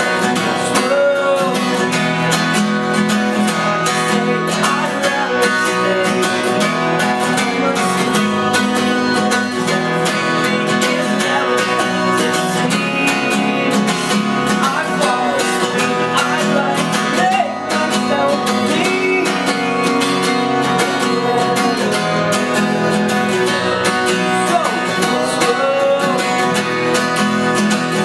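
Steel-string acoustic guitar strummed steadily while a man sings a melody over it, live and unamplified-sounding.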